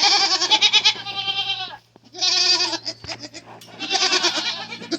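Dairy goats bleating, several wavering calls one after another with a brief pause about two seconds in.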